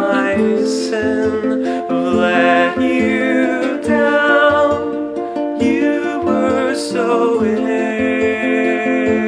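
Acoustic folk music: plucked strings play a melodic instrumental passage, with sustained pitched notes over them.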